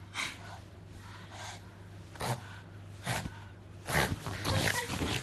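Pug snorting through its nose with a lint roller held in its mouth: a few short snorts about a second apart, then a louder, longer run of snorting as it shakes its head near the end.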